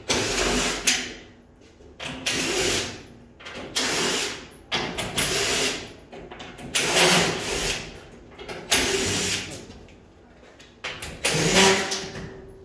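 Power drill run in repeated short bursts, about seven in all, each about a second long with brief pauses between.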